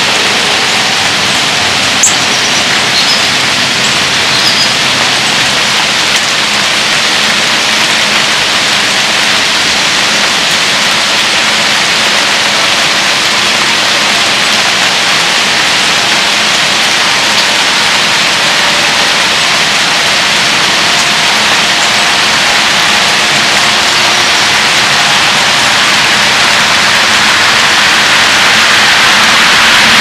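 Pouring rain, a steady dense hiss of falling drops, growing louder over the last several seconds.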